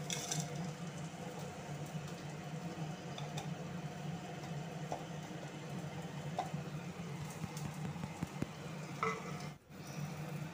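Chopped onion frying in mustard oil in a kadhai, a steady low sizzle with a low hum under it, with light clicks of garlic, ginger and chillies dropped into a steel grinder jar. The sound breaks off for a moment near the end.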